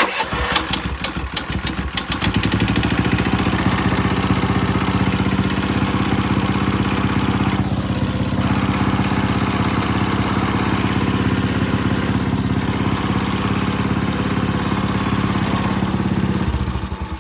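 Predator 212ES single-cylinder four-stroke small engine started on its new electric starter, catching at once and settling into a steady run after about two seconds, then shut off near the end.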